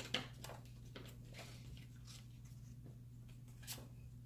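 Paper planner pages and stickers being handled: a sharp click just after the start, then faint scattered rustles and light ticks. A steady low hum runs underneath.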